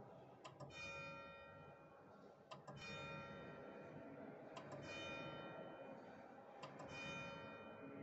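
A single church bell struck at a steady pace, about one stroke every two seconds, four times. Each stroke is the same pitch, with a sharp click just before it, and rings on. The bell is striking the hour at 11:00.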